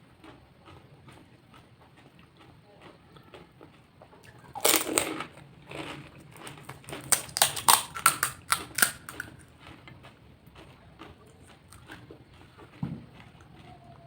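Crisp fuchka (pani puri) shells crunching and cracking, with a loud crunch about five seconds in and a quick run of sharp cracks a couple of seconds later, and faint chewing clicks in between.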